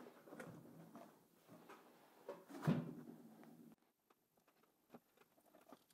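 Handling knocks and rustles as a new 12 V battery is pressed into place in a battery box and its cables are moved, with a thud about two and a half seconds in. After that only faint small clicks as a screwdriver works a terminal screw.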